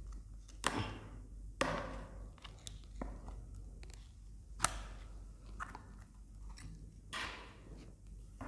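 Plastic ice cream tub being opened by hand: a series of sharp plastic clicks and crackles as the lid is worked off, then a spoon scraping into the frozen ice cream near the end.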